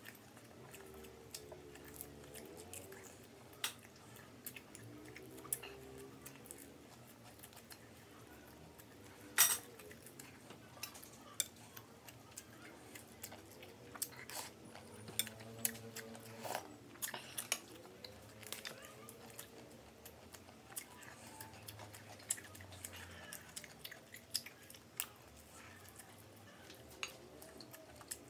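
Close-up eating sounds: chewing of crispy fried duck, with utensils clicking and tapping against a plate at irregular moments. The sharpest clink comes about nine and a half seconds in.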